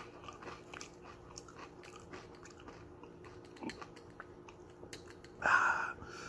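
A person chewing crunchy dill pickle chips with the mouth close to the microphone: a run of small crisp crunches and clicks. About five and a half seconds in, a brief louder noise stands out.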